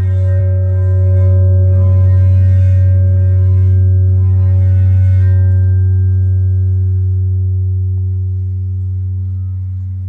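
Large round metal Chladni plate made to sing by rubbing a rubber-ball friction mallet against it, giving a steady low hum with ringing overtones. The rubbing stops about five seconds in, and the tone rings on and slowly fades. The plate is vibrating in one resonant mode, which shakes the sand on it into a ring-shaped pattern along the still nodal lines.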